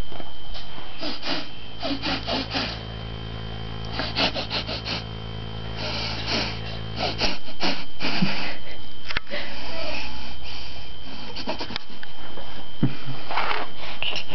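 A baby sniffing hard through his nose over and over, quick snorting sniffs in short clusters.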